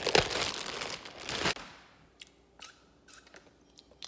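Loud, scratchy kitchen handling noise, a dense rustle that stops abruptly about a second and a half in, followed by a few light clicks and taps.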